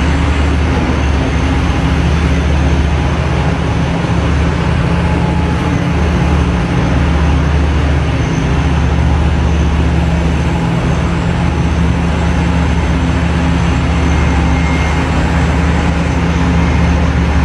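Large Komatsu hydraulic mining excavator's diesel engines running under load: a steady, loud, deep drone.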